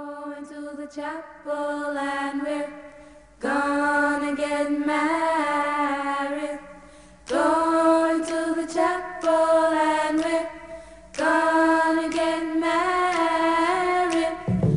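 Background music in a bare vocal passage: sung voices holding long, slightly bending notes in four phrases a few seconds each, with no drums or bass.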